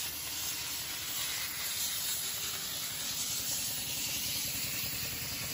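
Steady hiss of compressed air from an OLLITAL OLT-P60 dry ice blasting machine running. A low, rapid rattling rumble underneath grows stronger about two seconds in.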